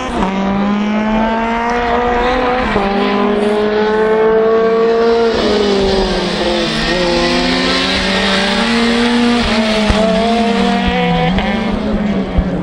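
Ford Fiesta rally car's engine revving hard under acceleration, its pitch climbing and then dropping back at each of several gear changes. A rushing hiss from the tyres on the loose surface swells midway through.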